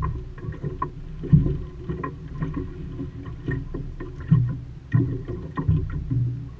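Lake water slapping and knocking against the wooden hull of a small Optimist sailing dinghy, in irregular low thumps over a steady wash of water, heard from inside the boat.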